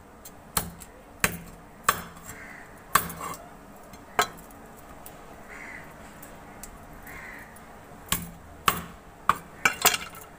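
A knife chopping the fins off a large whole fish against a wooden cutting board: sharp chops at uneven intervals, with a quick run of them near the end. Crows caw faintly in the background.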